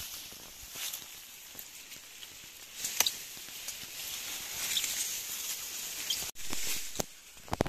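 Broom grass being plucked and handled: dry stalks, flower heads and long leaves rustling and crackling, with a few sharp snapping clicks.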